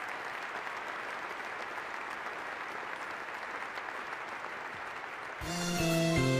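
Large crowd applauding steadily in a big hall. About five seconds in, the applause gives way to closing music with clear instrument notes.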